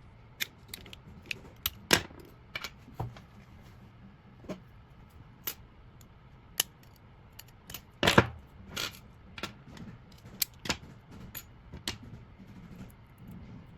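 Irregular sharp clicks and small metallic taps as a Hyundai car door lock cylinder is handled and taken apart, with the loudest knocks a little past halfway and near the end.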